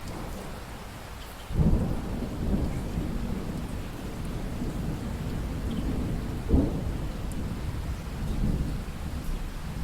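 Steady rainfall with thunder: a low rumble breaks in suddenly about a second and a half in and rolls on, with a sharper clap partway through.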